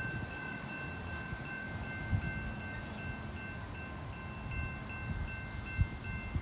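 Railroad grade-crossing warning bell ringing steadily with a high, repeating ding, over the low rumble of autorack cars rolling slowly past. A couple of sharp clanks from the cars stand out, about two seconds in and near the end.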